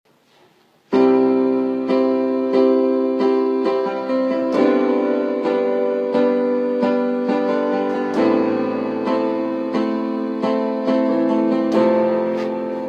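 Instrumental song intro on piano, chords and notes struck at a steady pace after about a second of near silence, fading near the end.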